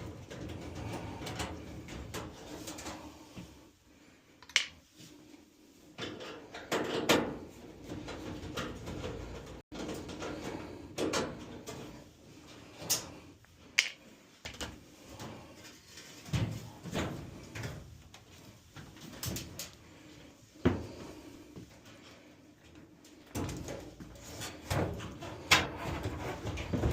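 Scattered clunks, clicks and scrapes from a Whirlpool dryer's sheet-metal panels and parts being handled and taken apart.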